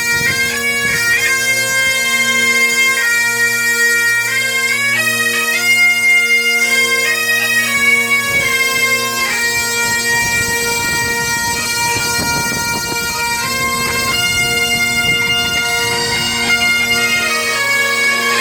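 Breton bagad pipe band playing: bagpipes hold steady drones under a chanter melody that steps from note to note. A dense patter of quick strikes runs under the pipes through the middle of the passage.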